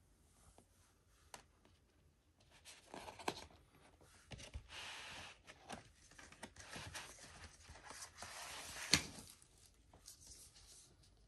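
Paper and card sleeves of a vinyl LP rustling and sliding as the record is handled, with scattered light clicks and one sharp knock about nine seconds in.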